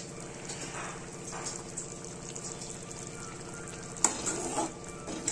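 Curry base simmering in an aluminium pot with a quiet, steady sizzle. About four seconds in, a steel ladle clinks against the pot and scrapes as it stirs the curry, and it stirs again near the end.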